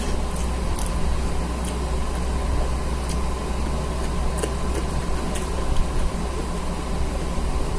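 A steady low mechanical hum runs throughout, with faint short clicks and smacks of someone eating scattered through it.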